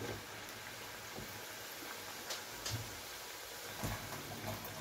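Hot oil sizzling and crackling steadily around squashed green plantain slices on their second fry, with a few sharp clicks from a wire skimmer moving among them in the pan.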